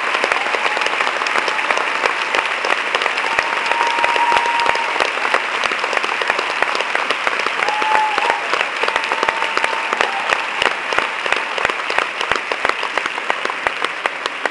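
Theatre audience and cast clapping in sustained applause, a dense wash of hand claps that thins toward the end into more separate claps.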